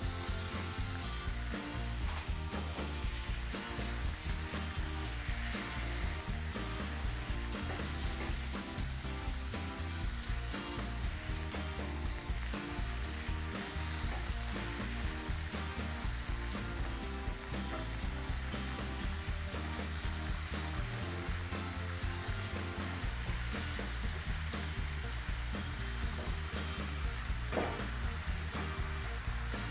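Beef strips sizzling in hot peanut oil in a wok, a steady frying hiss, while a spatula stirs and turns them with occasional light scrapes.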